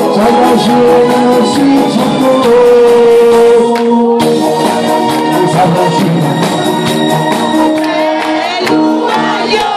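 Male singer singing into a microphone over amplified backing music with a steady beat, loud through the stage PA.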